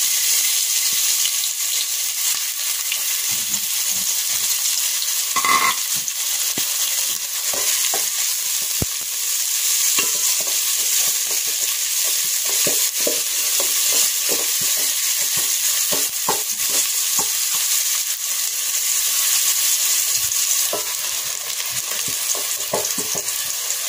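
Chopped red onion sizzling steadily in hot oil in an aluminium pot, stirred with a wooden spoon that scrapes and taps against the pot.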